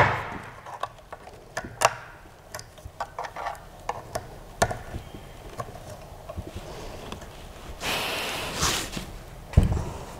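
Scattered clicks and knocks of metal and plastic parts as a Creality CR-6 SE 3D printer's gantry frame is handled and fitted onto its base, with about a second of scraping a little before the end and a heavy thump near the end.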